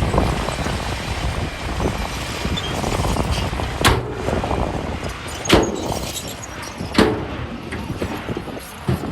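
Heavy earthmoving machinery running steadily, with three sharp knocks about a second and a half apart.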